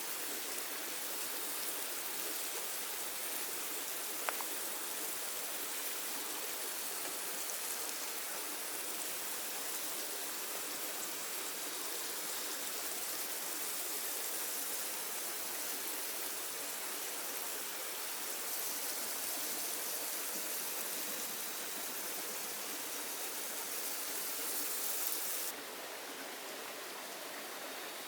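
Heavy rain falling steadily in the forest, an even hiss, with one sharp tick about four seconds in. The hiss drops a little near the end.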